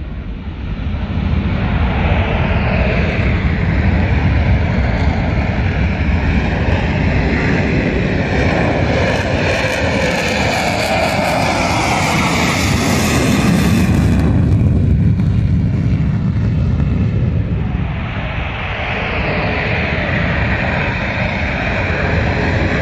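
Dassault Rafale fighter jets' twin turbofan engines at takeoff power as the jets roll and lift off the runway: a loud, continuous jet rush with a whine that shifts in pitch. The high part of the noise drops away abruptly about two-thirds of the way in, and the engine noise builds again near the end as the next jet goes.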